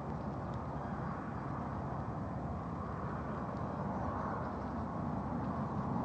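Steady outdoor background noise, low and even, with no distinct events.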